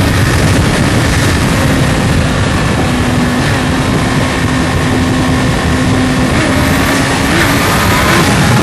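Motor vehicle running at a steady high speed: a loud, continuous rush of noise over a held engine note that shifts only slightly.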